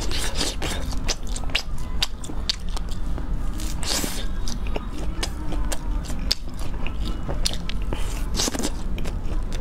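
Close-miked biting and chewing of grilled, spice-crusted skewered food: a quick run of crisp crackling crunches and wet mouth sounds, over a low steady hum.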